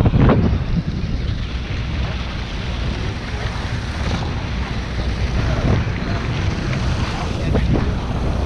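Wind buffeting the camera's microphone on a boat at sea, a steady low rumble with seawater washing along the hull.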